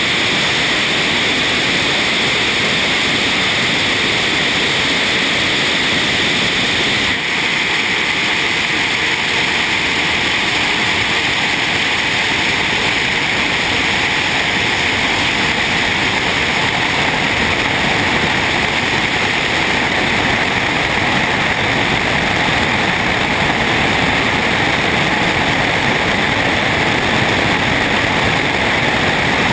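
MiG-29K's twin jet engines at full takeoff power with afterburners lit, a steady loud rush mixed with airflow over a camera mounted on the airframe between the engine nacelles. It dips briefly about seven seconds in.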